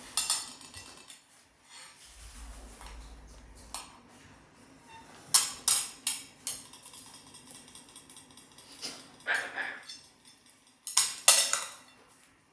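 A spoon clinking and tapping against a dish as a parrot handles it, in irregular sharp knocks that come in small clusters of two or three.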